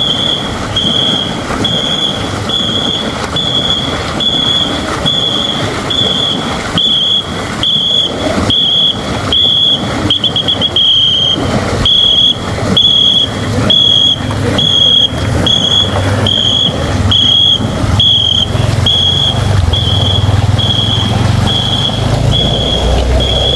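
A whistle blown in short, evenly spaced blasts, about three every two seconds, pacing the strokes of a long-boat paddling crew; about halfway through, one blast becomes a trill. Underneath, many paddles churn and splash the water.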